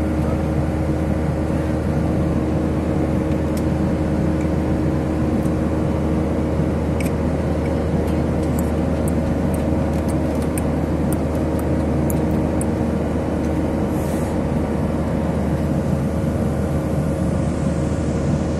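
Airliner cabin noise: a steady, even drone with a strong low hum and a few held tones. Scattered faint ticks sound through the middle.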